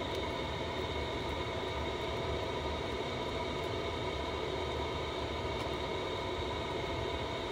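A camper van's heater running, giving a steady, even hum with several fixed tones held over it.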